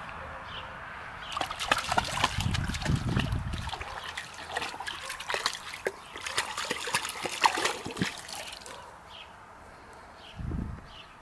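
Rough collie puppy wading in the shallow water of a plastic paddling pool, its paws sloshing and splashing in quick, irregular bursts for several seconds, then quieter after about eight seconds.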